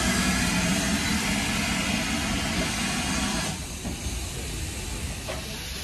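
A standing GWR 2-8-0 tank steam locomotive hissing steam over a low rumble. The hiss cuts off sharply about three and a half seconds in, leaving the low rumble.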